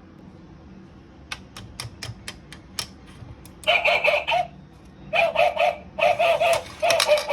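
Shape sorter toy: a few light sharp clicks, then from about halfway in its sound effect plays in four bursts of quick, repeated bird-like clucking notes.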